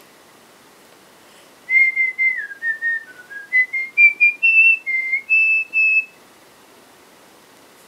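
A woman whistling a short tune through pursed lips: a run of clear separate notes that step down and then climb higher, starting about two seconds in and stopping about two seconds before the end.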